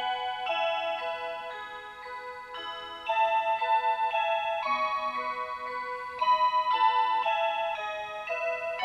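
Electronic chime melody from a program timer's built-in chime: clear, steady electronic notes changing about twice a second over a pulsing lower accompaniment, getting louder about three seconds in and again about six seconds in.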